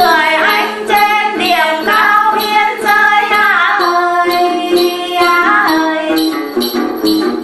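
A woman singing a Tày then folk song in a gliding, ornamented line over đàn tính lute and a backing with a steady beat. The sung phrase ends about six seconds in and the instruments carry on.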